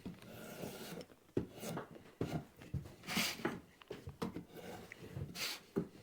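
Draw knife scraping and shaving bark off a wooden branch leg in a series of irregular strokes, the loudest about three seconds in and again near the end, with short knocks in between.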